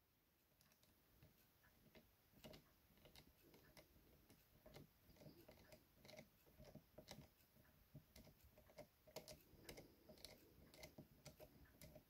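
Faint, irregular small clicks and ticks of a precision screwdriver turning a small screw into a plastic speaker housing, coming more often after the first couple of seconds.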